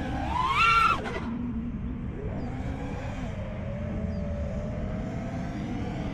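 Brushless motors of a 5-inch FPV freestyle quadcopter (Ethix Stout 2306 1750 kv) whining: a loud rising punch of throttle about half a second in that drops away after a second, then a steadier whine that wavers gently in pitch.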